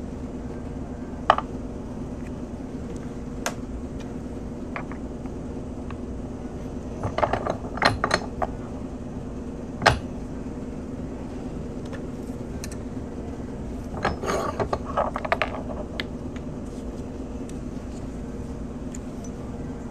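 Scattered sharp clicks and clatters of a steel coin ring reduction die and its plastic punch being handled and taken apart, with busier clusters of clicking about seven and fourteen seconds in, over a steady low hum.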